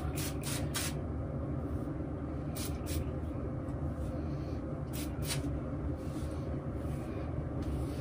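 Short hissing puffs from a spray bottle of OGX Silk Blowout heat protectant misting sections of hair: three quick sprays, then two, then two more about halfway through. A steady low hum runs underneath.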